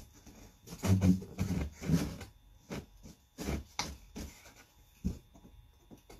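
Quarter-inch Baltic birch plywood scroll-saw panels being handled on a wooden workbench: rubbing and scraping as hands slide and shift the thin wood, with a scatter of light knocks as the pieces move.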